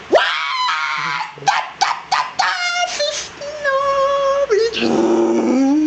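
A man's voice making short, high yelping and whimpering noises, then holding long sung notes, first a higher one and then, near the end, a lower steady one.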